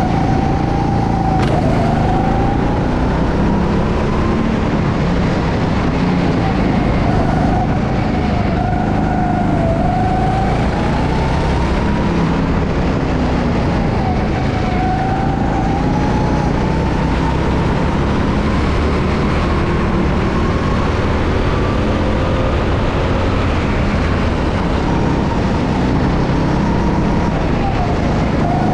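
Go-kart engine running hard through a lap, its note climbing steadily and then dipping sharply several times as the kart slows for corners and picks up speed again.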